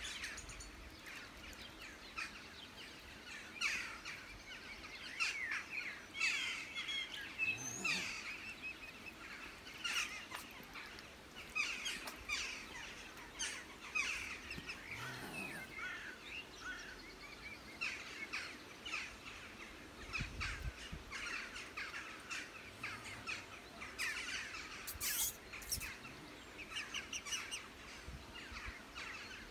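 Birds chirping and calling, quick runs of short high notes again and again, over faint outdoor background noise.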